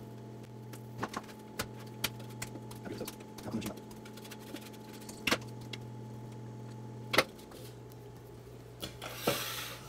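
Scattered clicks and knocks of a plastic food-processor bowl and its metal dough blade being handled and set down on a stone counter while dough is scraped out, over a steady low hum. A brief rubbing hiss comes near the end.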